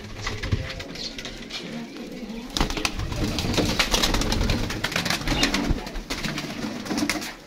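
Young Teddy Ferozpuri pigeons cooing in a loft, with a flurry of wing flaps that becomes louder and busier about two and a half seconds in.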